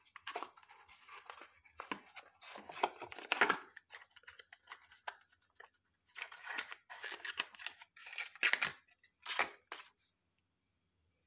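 Handling noise from unpacking a wireless microphone kit: rustling and scraping of the black box's foam insert and packaging, with several sharp clicks and knocks, the loudest about three seconds in and again near the end.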